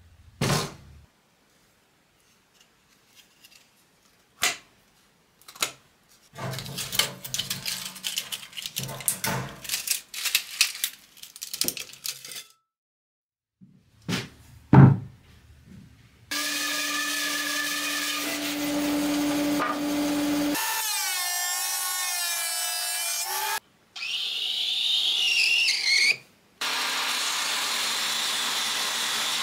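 Workshop sounds: a few sharp knocks and a stretch of wood rubbing and scraping on a bench, then a table saw running and cutting wood, loud and steady, with its pitch wavering for a few seconds and stopping and restarting abruptly several times.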